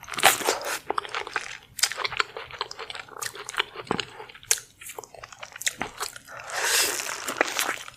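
Close-miked crunchy food being bitten and chewed: a dense run of sharp crunches and crackles, with a longer crackling crunch near the end.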